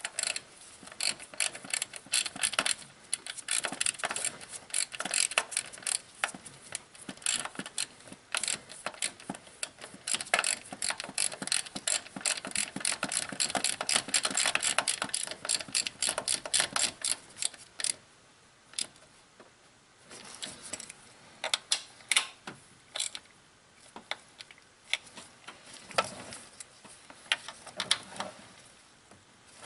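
A hand ratchet clicks in quick runs as a bolt at the base of the distributor is turned. After about eighteen seconds the clicks thin out to scattered ones.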